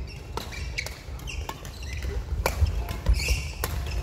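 Badminton rally: sharp racket strikes on the shuttlecock, roughly one every half-second to second, with sports shoes squeaking and thudding on the wooden court floor.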